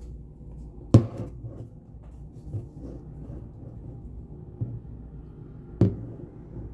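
Two sharp knocks about five seconds apart, with two fainter ones between them, over a steady low hum.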